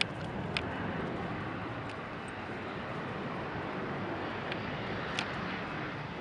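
Steady drone of a small twin-engine propeller plane approaching on final from a distance, with a few faint clicks.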